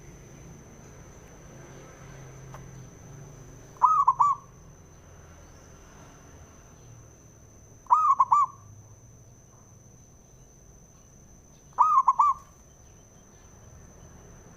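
Zebra dove (perkutut) singing its cooing song: three short phrases of quick, rolling coo notes, about four seconds apart. A faint steady high whine runs underneath.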